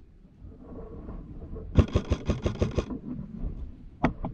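Airsoft rifle firing a full-auto burst of about eight rapid shots in just over a second, followed near the end by a single sharp crack.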